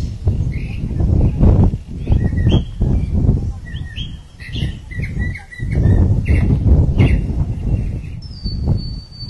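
Small birds chirping in many short calls, with a thin held whistle near the end, over a loud, uneven low rumbling noise.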